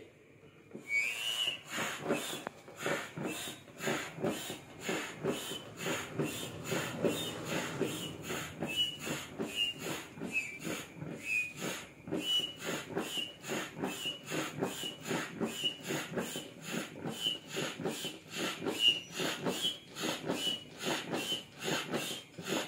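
Foot-operated bellows air pump worked steadily by foot at about two strokes a second, inflating an inflatable boat. Each stroke pushes out a rush of air with a short whistling squeak.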